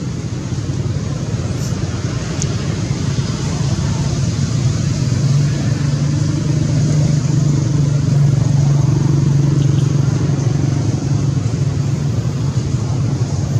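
Steady low hum of a motor vehicle's engine running nearby, growing a little louder in the middle, over a constant hiss.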